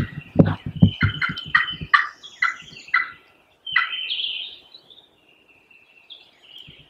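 Wild turkey calling: a fast series of sharp, falling notes over about three seconds, then a short burst of calling about a second later.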